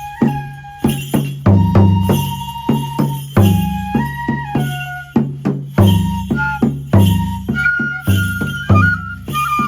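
Kagura music: a transverse bamboo flute plays a melody of held notes that step between pitches, over repeated drum strokes and sharp percussive strikes.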